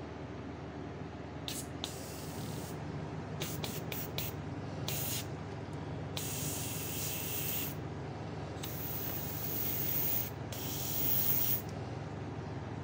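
Airbrush spraying paint in hissing bursts as the trigger is worked: several short spurts, then three longer sprays of a second or more each, the last ending shortly before the end.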